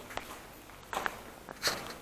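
Three short scuffs, about a second in, near the start and near the end, the last the loudest.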